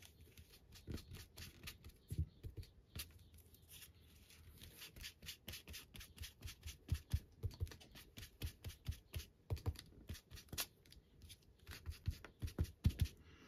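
Foam ink blending tool dabbed and swiped repeatedly over paper, working Tea Dye distress ink into the edges: a run of soft taps and brushing scuffs, coming faster and firmer in the second half at about three a second.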